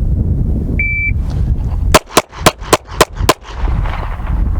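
Shot timer beeps once, and about a second later a Smith & Wesson M&P 2.0 pistol fires six quick shots, about four a second, for the 'six rounds in four seconds' string. Wind rumbles on the microphone throughout.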